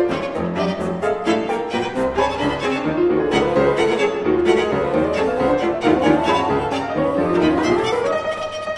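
Violin, cello and piano playing fast contemporary chamber music together, with quick detached notes and melodic lines rising and falling. Near the end one note is held steady.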